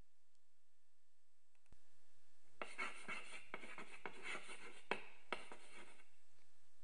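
Handwriting sound effect: scratchy writing strokes with a few sharp taps, in two stretches with a short break about five seconds in.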